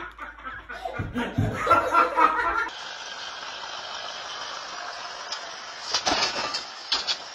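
Brief laughter, then a steady hiss with a vehicle moving. A few sharp knocks come about six and seven seconds in.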